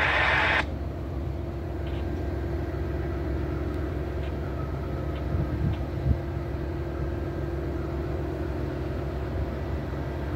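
Diesel locomotives of a stopped Amtrak passenger train idling: a steady low rumble with a steady hum. A louder hiss-like noise cuts off suddenly just after the start.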